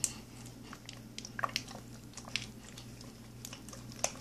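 A white plastic squeeze bottle of glue being squeezed and handled over a tub of slime mix: scattered short sticky clicks and squelches.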